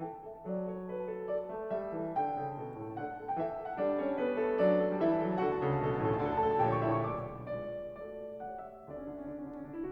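Background piano music: a melody of short notes over bass notes.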